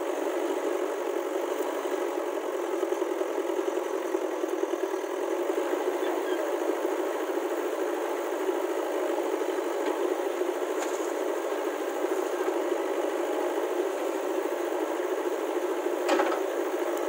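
JCB 3DX backhoe loader's diesel engine running steadily while the backhoe arm digs and loads mud, with a brief knock near the end.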